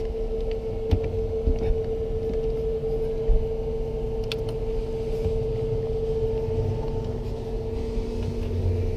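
A steady machine hum with an even tone, with a few light clicks and knocks as the quick-charger connector is worked at the car's charging port while it stays latched.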